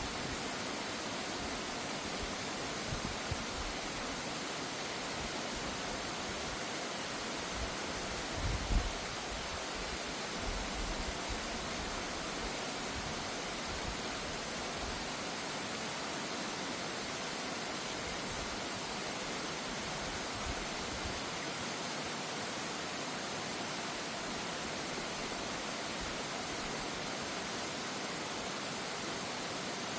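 Mountain stream rushing, a steady even hiss of running water, with a brief low thump about nine seconds in.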